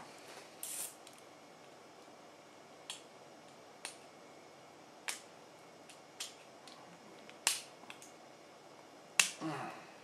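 Sharp, irregular clicks of small hard parts, the loudest near the end followed by a brief rattle: a circlip being worked onto the roller shaft of a sliding-door hinge.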